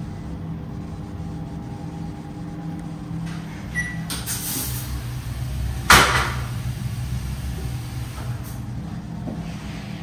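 Steady low mechanical hum, with a short burst of hiss about four seconds in and a single sharp knock about six seconds in.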